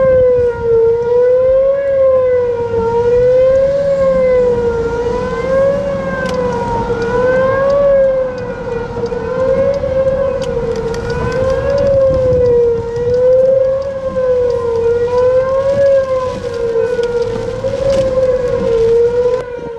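Outdoor tornado warning siren sounding a long held tone whose pitch rises and falls slightly about every two seconds, over low vehicle and road rumble.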